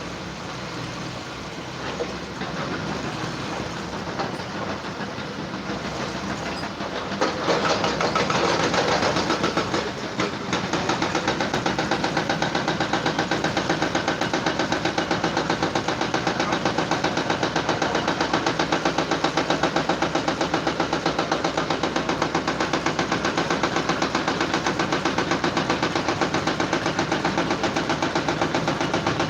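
A machine running, getting louder over the first few seconds, then settling from about ten seconds in into a steady, fast, even beat.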